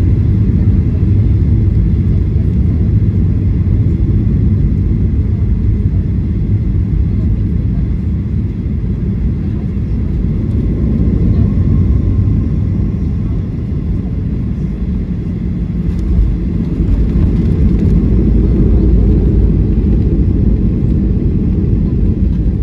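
Boeing 737-800 cabin noise heard from inside the airliner: a steady low rumble of the jet engines and airflow, swelling slightly about sixteen seconds in.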